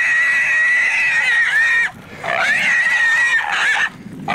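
Wild hog squealing in long, high, steady squeals, one after another with short breaks between, as it is caught and held by the hunting dogs.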